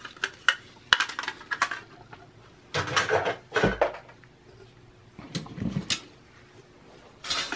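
Clicks, knocks and light metallic clatter in several short bursts as parts are handled and pulled inside a Dell OptiPlex 9010 small-form-factor PC case.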